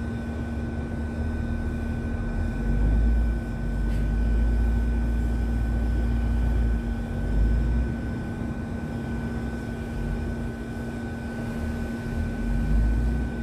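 Machinery running steadily: a low rumble under a constant hum and a fainter, higher whine, with no sharp knocks.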